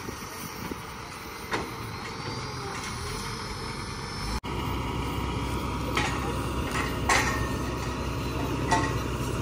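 Engine of a truck-mounted borewell drilling rig running steadily, with a few sharp metallic knocks from the rig in the second half.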